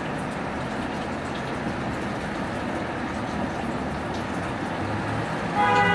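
Steady background traffic noise. Near the end a vehicle horn starts sounding, a loud held tone.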